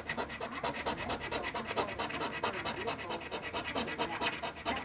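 A 1916 Canadian one-cent coin scraping the silver latex off a paper scratch-off lottery ticket in fast, even back-and-forth strokes, about nine a second, stopping just before the end.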